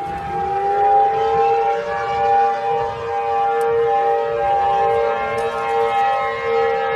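Civil defense siren sounding a sustained wail of several steady tones at once, its lowest tone finishing a rise in pitch in the first second.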